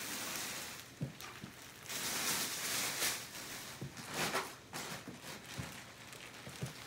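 Plastic wrapping on a mattress crinkling and rustling in surges as the mattress is pushed and shifted into place, with a few soft thumps from the mattress being handled.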